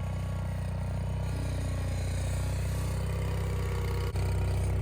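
Vehicle engine idling steadily, cutting out briefly about four seconds in and coming back louder.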